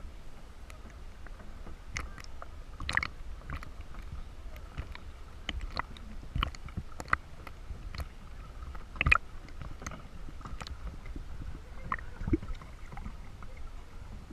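Kayak being paddled on water: irregular short splashes and knocks from the paddle, some sharper than others, over a low steady rumble.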